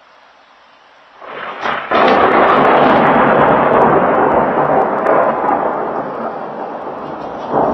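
Thunder from a nearby strike: a rising crackle about a second in, then a sudden loud crash about two seconds in that rolls on as a long rumble, slowly fading, with a second swell near the end.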